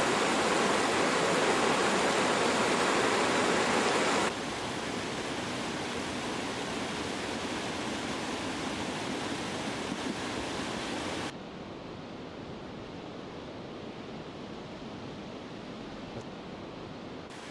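Steady rush of a mountain stream, cutting abruptly to a quieter level about four seconds in and again about eleven seconds in.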